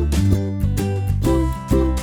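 Background music: an upbeat track led by plucked guitar over a bass line and a steady beat.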